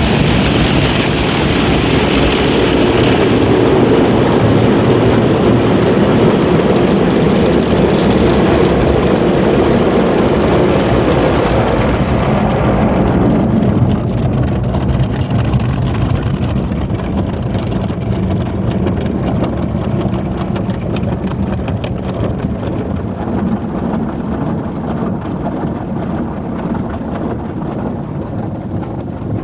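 Motor City Wash Works conveyor car wash heard from inside the car: a loud rush of spray and the slapping, rubbing cloth brushes and curtain strips sweeping over the windows and body. About halfway through the high hiss drops away, leaving a lower flapping and thrashing of the cloth against the car.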